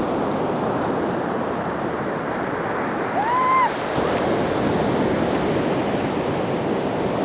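Ocean surf washing and breaking on the beach, with wind buffeting the microphone. About three seconds in, a brief rising-and-falling call sounds over it.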